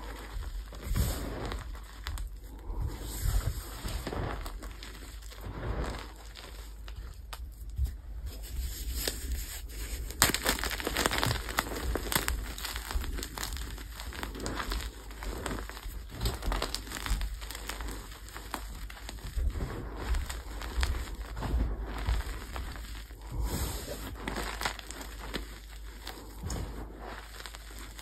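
Soft gym chalk blocks dusted with baby powder being squeezed and crumbled by hand: a continuous stream of crunching and crackling, louder for a few seconds about ten seconds in.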